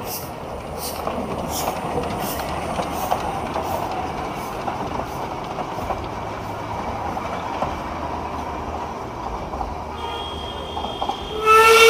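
A Darjeeling Himalayan Railway narrow-gauge steam train rumbles past close by: the locomotive, then its coaches, with a regular beat about twice a second in the first half. Just before the end the steam whistle starts to blow, loud.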